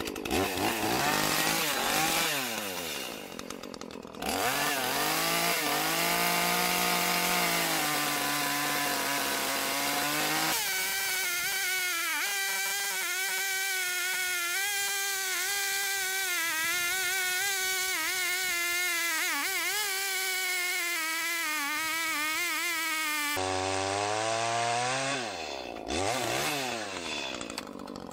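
Echo CS310 30.5 cc two-stroke chainsaw revving, then cutting through a dry poplar log. For most of the cut the engine is held at a lower, wavering pitch under load, and it revs back up near the end as the cut finishes.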